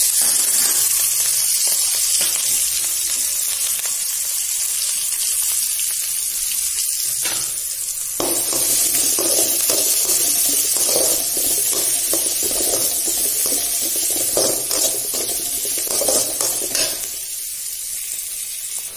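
Chopped onions and curry leaves sizzling in hot oil in a kadai, a steady frying hiss. From about eight seconds in, a spatula stirring and scraping in the pan joins it.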